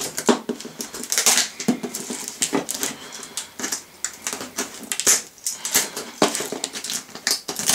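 Handling noise from a taped cardboard parcel: irregular scraping, rustling and knocks as its black plastic corner protectors are worked off the box.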